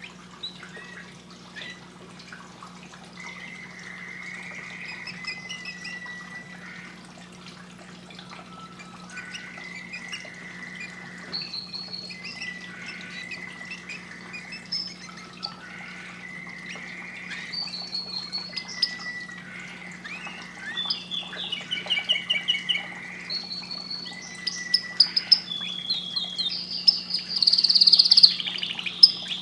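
Caged canary singing a long run of warbled phrases and rapid trills, growing louder and busier over the last few seconds. A steady low hum runs underneath.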